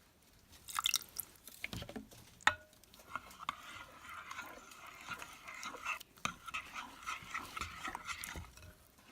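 Thickening clear-glue slime being stirred in its jar: sticky, wet clicks and squelches, with a sharp click about two and a half seconds in, then a steady stretch of crackly squelching.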